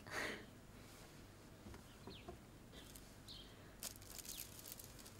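Quiet room tone with a couple of faint, short bird chirps and light rustling as a bundle of dried reed flowers is handled, the rustle clustered about four seconds in.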